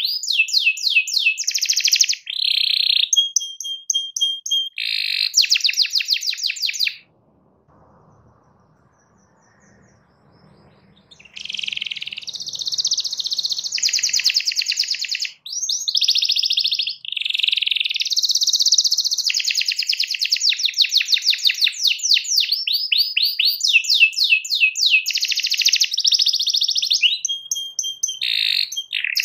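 Domestic canary singing a long song of rapid trills and rolls, stopping for about four seconds a third of the way in, then starting again.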